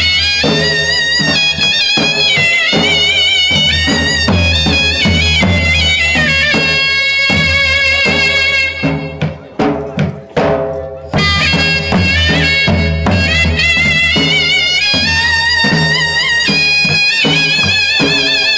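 Charani raas folk music: a sustained, wavering lead melody over a steady low drone and drumbeats. Around the middle the melody breaks off for a couple of seconds, leaving only the drum strokes, then comes back.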